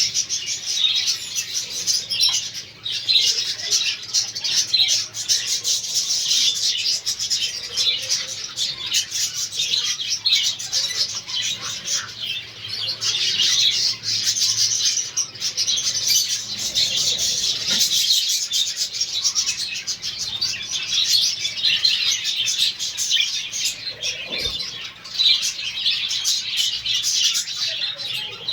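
A flock of budgerigars chattering and chirping together, a dense continuous twittering without pauses.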